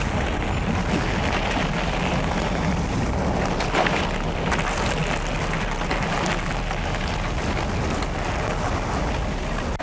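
E-mountain bike rolling over a dirt and gravel trail: steady tyre noise with a scatter of small clicks, rattles and knocks and a low rumble, picked up through the handlebar-mounted camera.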